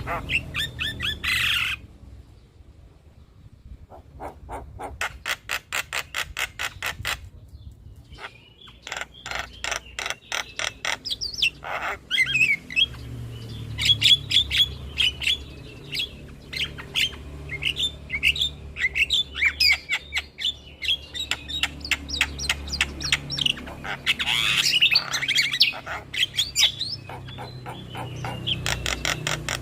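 Javan myna (jalak kebo) calling: runs of rapid clicking notes, about four a second, in the first part. From a few seconds before the middle, busy chattering song with harsh squawks and sharp chirps takes over.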